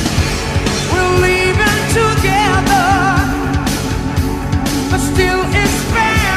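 Rock song with a sung vocal line, wavering in pitch, over a steady beat.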